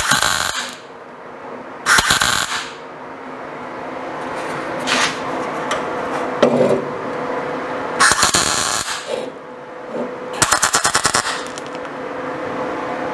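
MIG welder arc crackling in four short bursts, each under a second, as tack welds go in on a thin steel patch panel over rusty sheet metal. The last burst stutters rapidly. The rust makes for a dirty weld.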